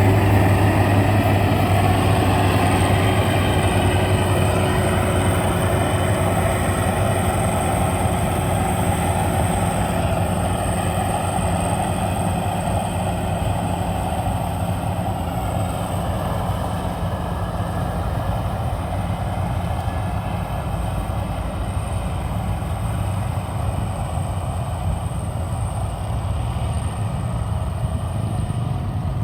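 Maxxi Bimo 102 rice combine harvester running steadily, with a deep engine hum and a thin high whine. It grows gradually quieter over the first dozen seconds or so.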